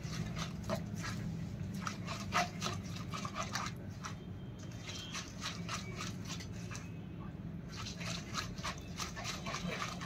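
A hand squeezing and rubbing soft ghee and vegetable shortening in a plastic bowl, kneading the fat until it melts smooth: a run of quick, irregular wet squelches and smacks. A steady low hum runs underneath.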